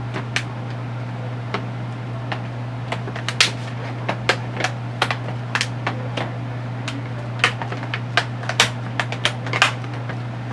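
Plastic screen bezel of a Dell Chromebook 11 being pressed back on, its clips snapping into place in a string of irregular sharp clicks over a steady low hum.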